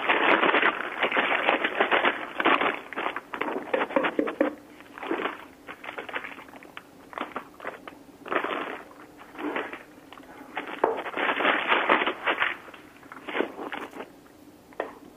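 Crinkling and rustling of a plastic piping bag being opened and filled with choux pastry, with scraping in a stainless steel pot. The noises come in irregular bursts.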